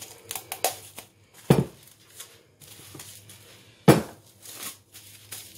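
A roll of cling film and a cling-film-wrapped ball of dough being handled on a wooden worktop: light plastic rustling and small clicks, with two sharp knocks about one and a half seconds in and near four seconds, the second the louder.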